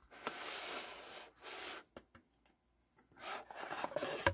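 Cardboard box lid rubbing and scraping as it is slid up off a watch presentation box. There is one long rasp, a shorter second one, then scratchy handling with light taps near the end.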